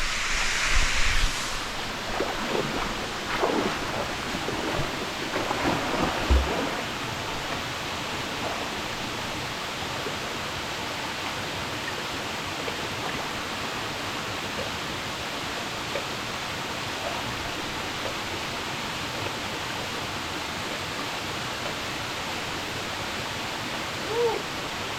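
Steady rushing of a waterfall, with a few short louder sounds in the first six seconds.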